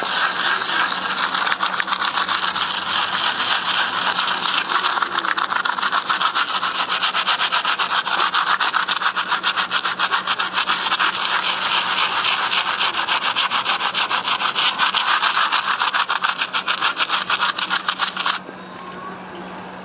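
Rapid back-and-forth abrasive scrubbing of a seized parking-brake part being cleaned, about four strokes a second, stopping abruptly near the end. A steady low hum runs underneath.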